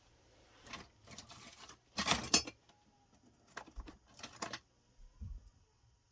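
Hands rummaging among packaging and small parts: a few scattered rustles and light clinks, loudest about two seconds in, with a small cluster of clicks near the middle and a soft thump later.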